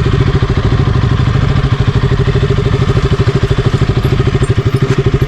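Single-cylinder 200 cc motorcycle engine running steadily at low revs, a fast, even putter that holds one pitch.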